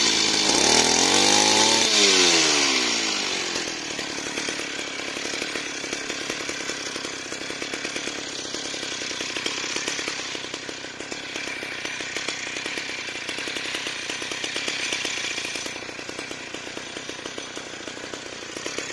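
Mitsubishi T140 two-stroke brush-cutter engine driving a motorised bicycle. It revs loudly over the first few seconds, its pitch falling, rising and falling again, then runs steadily and more quietly as the bike rides along.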